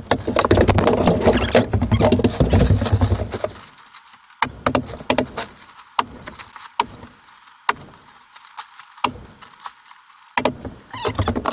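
Sped-up work noise from hanging drywall: a dense jumble of rumbling and clatter for the first few seconds, then sharp separate clicks and knocks with short quiet gaps between them.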